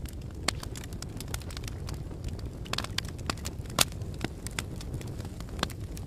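Fireplace fire crackling, with irregular sharp pops over a steady low rumble of flames; the loudest pop comes a little under four seconds in.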